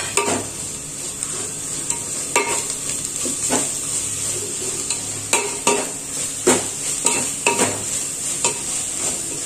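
A slotted metal spoon stirs tomatoes and ground spices frying in a large aluminium pot, scraping and clinking against the pot at irregular intervals over a steady sizzle.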